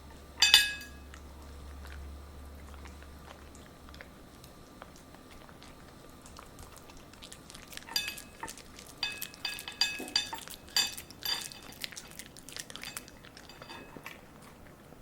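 A poodle eating broccoli. There is a loud clink about half a second in, then a run of clinks with chewing between them from about eight to fourteen seconds.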